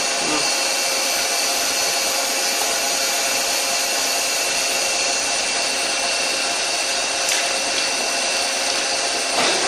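Doosan CNC lathe running with its spindle turning while the turning tool is fed slowly along the workpiece's outer diameter by the manual handwheel: a steady hiss with several high steady whining tones. This is the skim cut on the outer diameter used to touch off the tool for its offset setting.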